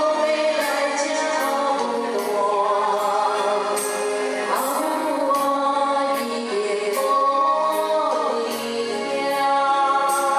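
A woman singing a Taiwanese-language ballad into a microphone over recorded backing music with a regular percussion beat.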